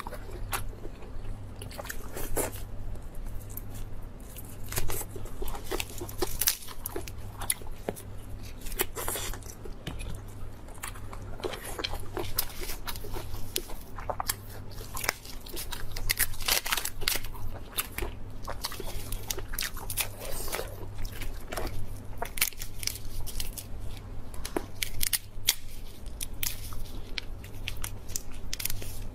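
Close-miked eating: a person biting and chewing, with frequent irregular crunches and clicks.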